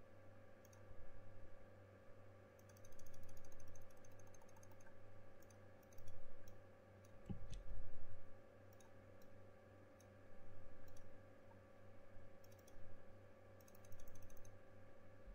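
Computer mouse and keyboard clicking in short groups, some as quick even runs of ticks, over a steady low electrical hum.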